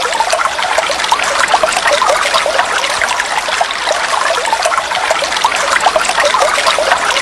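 Steady running water, trickling and bubbling, with many small quick bubbling blips over an even rushing noise.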